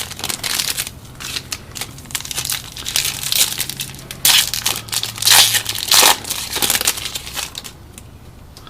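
Foil trading-card pack wrapper being crinkled and torn open, a dense crackling with louder bursts of crumpling about four to six seconds in.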